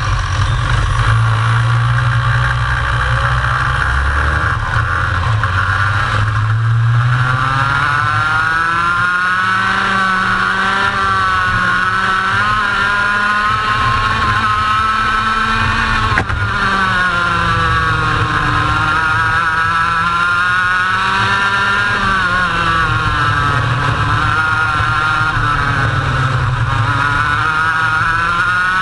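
Racing kart engine heard from a camera mounted on the kart, its pitch repeatedly rising as it accelerates and dropping as it slows. A heavy low rumble sits under it for roughly the first seven seconds.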